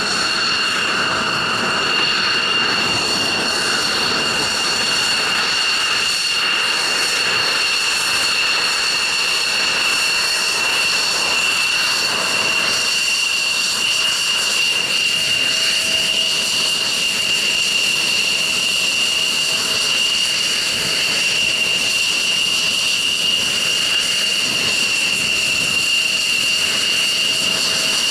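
F-16 fighter jet engines running at ground idle: a steady high-pitched whine over a constant rush of exhaust noise.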